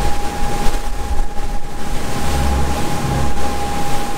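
Wind buffeting the microphone on a boat at open sea, in uneven low rumbling gusts over the wash of the waves, with a thin steady whine running under it.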